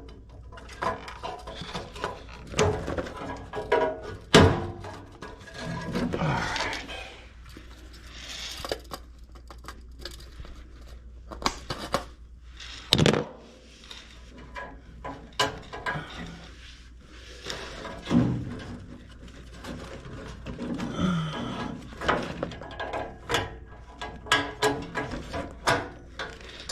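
Scattered knocks, clicks and rattles of hands working inside a furnace cabinet as the old control board is pulled off and the replacement board mounted. The sharpest knocks come about four seconds in and again about thirteen seconds in, over a low steady hum.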